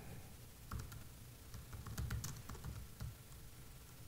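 Faint, irregular keystrokes on a computer keyboard: someone typing a line of text.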